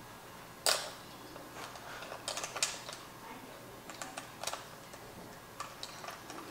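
Small, irregular clicks and ticks of a metal hex key working the steel screws of a red plastic cycling-shoe cleat, the screws being threaded in loosely. One sharper click comes under a second in, then a quick run of clicks about two and a half seconds in, and single ticks after that.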